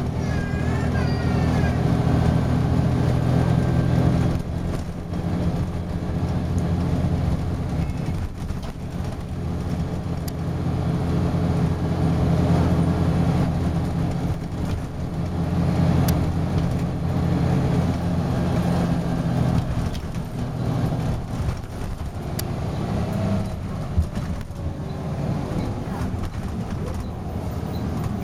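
Volvo B10B bus's diesel engine heard from inside the passenger saloon, pulling hard at high revs and swelling and easing several times as the bus accelerates and slows: the over-revving the bus is known for. A single sharp click near the end.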